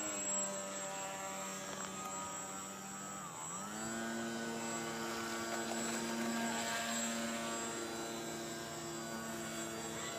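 Radio-controlled model airboat's motor and air propeller running steadily with a humming tone. Its pitch dips briefly about three and a half seconds in, then climbs back.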